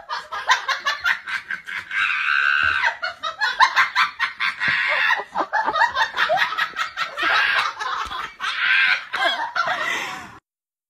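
A person laughing hard in rapid, high-pitched bursts, cutting off abruptly near the end.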